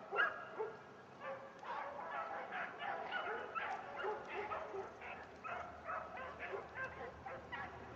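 A pack of rabbit hounds baying and yelping together, several voices overlapping without pause, the sound of the dogs running a rabbit's scent trail.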